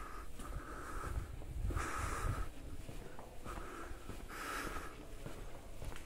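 A person breathing audibly through the nose close to the microphone, short hissing breaths in and out about once a second.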